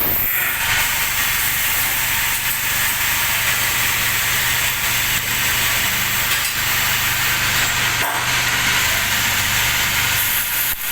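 NC lathe running while machining an aluminium motor body: a steady hiss over a low, even machine hum.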